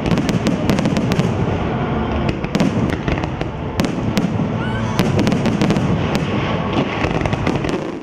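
Fireworks display: a continuous low rumble of bursts, dotted throughout with many sharp cracks.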